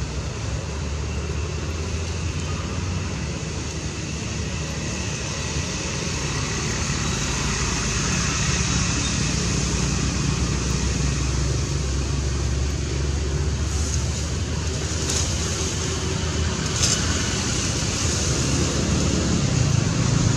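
Steady outdoor background noise: a low rumble with an even hiss above it. A few faint clicks come about two-thirds of the way through.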